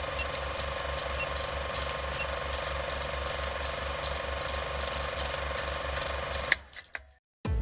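Old film projector sound effect: a rapid, even mechanical clatter over a steady whir, cutting off about six and a half seconds in.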